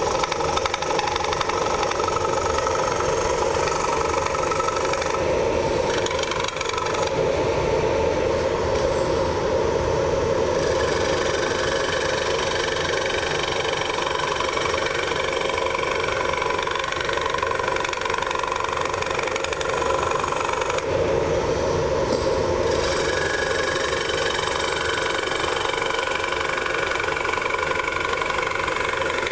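Wood lathe running with a carbide-tipped Easy Finisher cutting into the inside of a spinning wooden bowl, a steady scraping and shaving of wood over the lathe's motor hum. The higher hiss of the cut thins out briefly a few times as the tool eases off.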